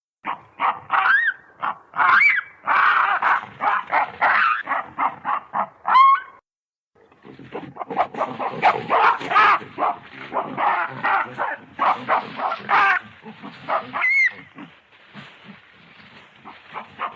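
Yellow baboons calling: rapid runs of harsh grunts and barks, several a second, with a few short shrill squeals that rise and fall in pitch. There is a brief pause about six seconds in.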